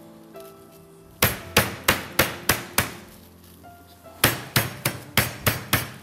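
A gloved hand slapping breadcrumb-coated chicken escalopes on a plastic cutting board, two runs of about six sharp pats at roughly three a second with a short pause between. The pounding presses the breadcrumbs into the meat so the coating stays on during frying.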